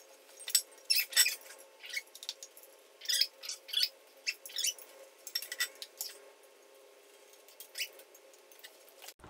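Light metallic clinks and rattles in scattered clusters as an aluminium intercooler and its charge tubes are handled and fitted into place, over a faint steady hum.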